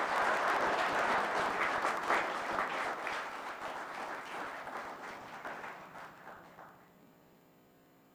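Audience applauding, fading away about seven seconds in.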